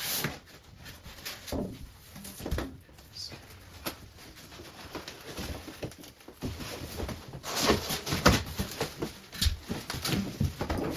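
Irregular knocks, taps and scrapes of hand work on a building job, sparse at first and growing busier and louder about seven and a half seconds in.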